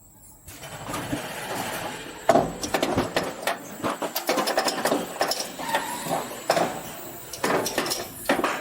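Roller coaster train clattering and rattling along its track, with repeated sharp knocks.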